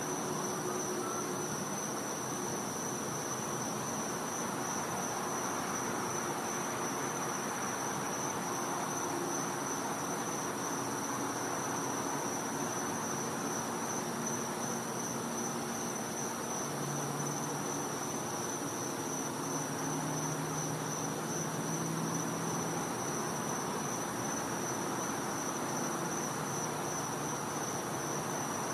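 Night insects calling in chorus: one steady, high-pitched trill that never lets up, with a faint low hum drifting underneath.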